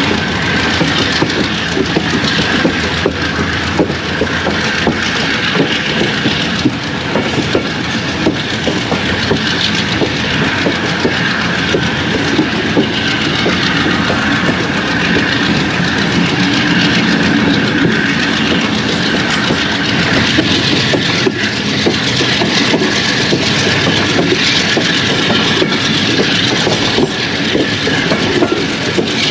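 Passenger train running along the line, its wheels clattering over rail joints in a steady clickety-clack under a continuous rolling rumble.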